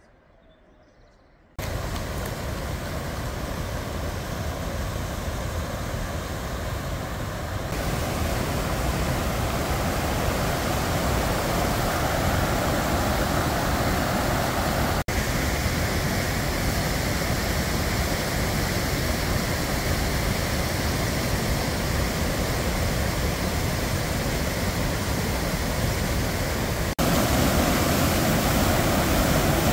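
Mountain stream rushing over boulders and small waterfalls: a steady, loud rush of water that starts suddenly about a second and a half in, after faint quiet, and steps up in level near eight seconds and again near the end.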